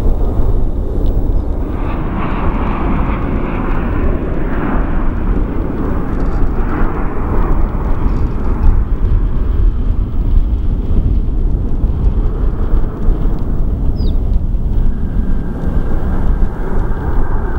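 Jet airliner landing: a heavy, steady low rumble, with a hissing jet roar strongest from about two to nine seconds in as it passes and touches down. A steady high engine whine comes in near the end as it rolls out.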